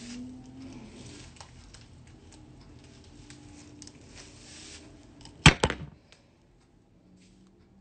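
Hairbrush strokes scratching through slicked-back hair in quick, uneven passes, then two sharp knocks close together about five and a half seconds in.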